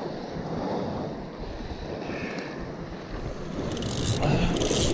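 Sea waves washing against shoreline rocks, with wind buffeting the microphone. Short bursts of hiss come near the end.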